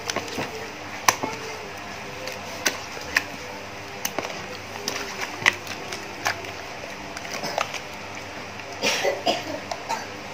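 Hands massaging marinade into a raw duck in a plastic tub: irregular wet squelches, slaps and clicks, with a busier cluster about nine seconds in.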